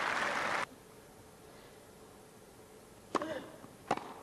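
Crowd applause that cuts off abruptly just after the start, then a quiet stretch of broadcast hiss. Near the end come two sharp strikes of a tennis racket on the ball, about three-quarters of a second apart: a serve and its return.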